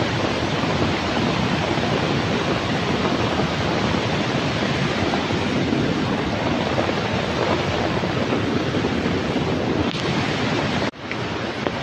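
Steady roar of a flash-flooded river, muddy floodwater rushing over rocks. It breaks off for an instant near the end.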